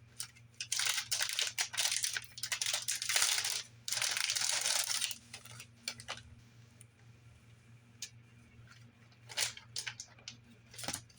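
Packaging crinkling and tearing as a replacement laptop battery is unwrapped, in dense bursts for about the first five seconds, then a few scattered rustles and clicks.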